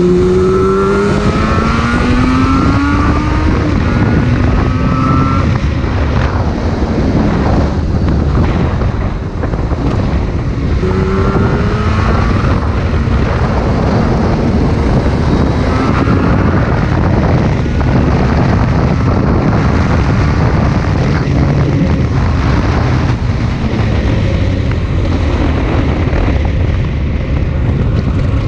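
Yamaha RZ250 two-stroke parallel-twin engine under way, its pitch rising as it revs up and shifts several times, with heavy wind rushing over the microphone.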